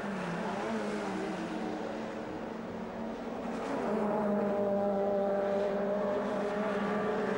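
Touring-car racing engines running at high revs on track, a steady engine note that dips briefly in pitch near the start and grows louder about four seconds in.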